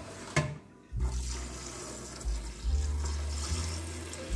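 Tap water running into a stainless steel bowl in a steel sink, filling it over chicken gizzards, starting about a second in after a short knock.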